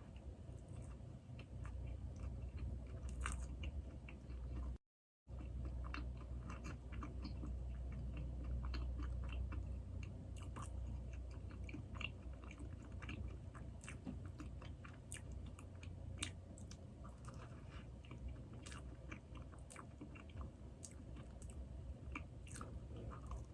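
Close-miked chewing and biting of soft glazed doughnuts, with many small wet mouth clicks. The sound cuts out completely for a moment about five seconds in.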